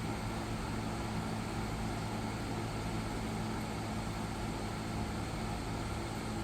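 Reiwa CP-1201RB 1.5 hp portable air conditioner (a TCL-built unit) running steadily: an even rush of air over a low, constant hum.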